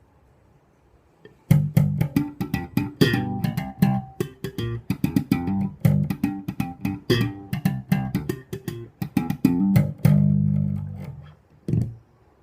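Aria Pro II TSB-650 electric bass guitar playing a quick run of plucked notes with sharp string attacks. It starts about a second and a half in, ends on a held note that fades out, and closes with one short note.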